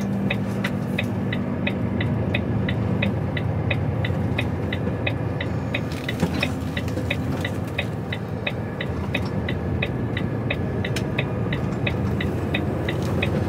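Inside an HGV lorry's cab: the diesel engine and road noise run steadily under the turn indicator's relay ticking evenly, about three clicks a second, while signalling a turn.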